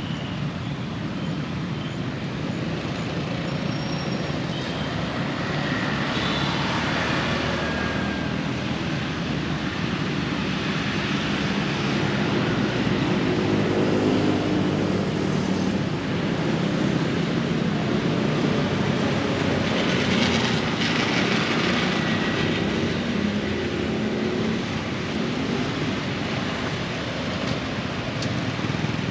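Steady vehicle engine and traffic noise that swells and fades again in the middle, with a few short bird chirps above it.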